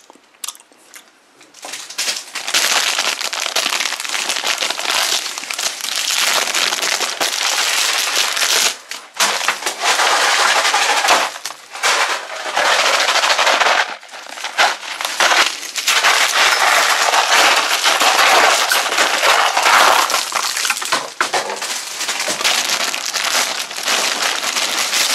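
Dense crackling and rustling of wrapped candies and plastic candy packaging being handled and tipped onto a pile. It starts about two seconds in and runs on with brief pauses about nine and fourteen seconds in.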